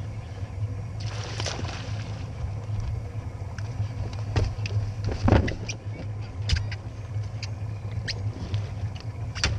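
A hooked bass splashing at the surface beside a bass boat as it is fought in and landed: a run of short sharp splashes and knocks, the loudest about five seconds in, over a steady low motor hum.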